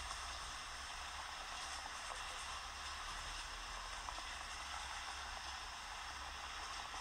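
Steady wind noise on the microphone outdoors: an even hiss with a low, fluttering rumble underneath.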